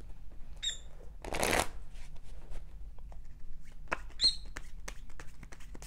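A deck of tarot cards being shuffled by hand: a run of soft card clicks and flicks, with a longer rustle about a second and a half in. A pet parrot gives two short high chirps, one under a second in and a louder one about four seconds in.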